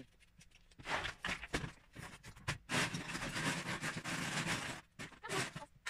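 Loose plastic Lego bricks clattering as hands rummage through a tub full of them: a dense run of rattling clicks from about a second in until near the end, then one more short clatter.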